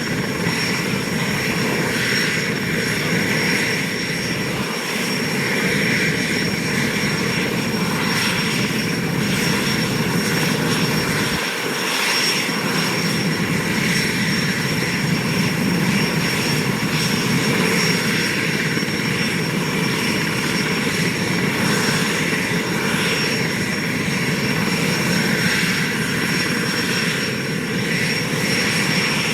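Aérospatiale SA-330L Puma helicopter's twin Turbomeca Turmo turboshaft engines running steadily on the ground with the rotors turning: a steady high turbine whine over a broad, even rushing noise.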